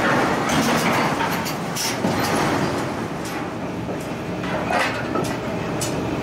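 Steady din of forging machinery, with irregular sharp metal clanks as tongs and steel bars knock against a red-hot steel flange ring.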